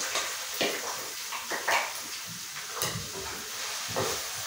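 Chopped onions scraped from a ceramic bowl into hot oil in a frying pan with a wooden spatula, then stirred. It sounds as a run of short knocks and scrapes of the spatula on the bowl and pan over a faint, steady sizzle.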